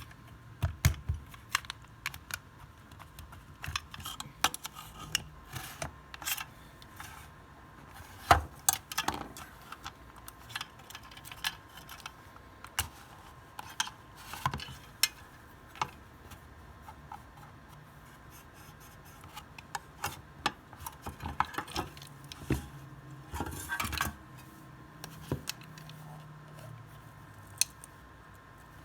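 Irregular clicks, taps and clatters of small hard parts and tools being handled, over a faint steady electrical hum.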